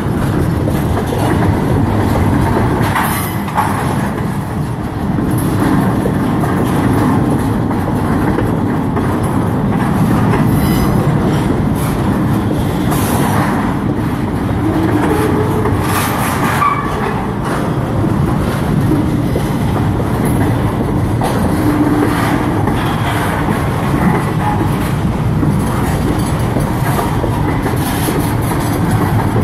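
Freight train's well cars with stacked containers rolling past close by: a loud, steady rumble of steel wheels on rail, with clicks and knocks as the wheels pass over rail joints.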